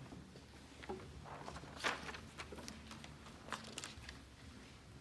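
A few light knocks and paper rustles, loudest about two seconds in, as sheet music is set up on the music stand of an upright piano.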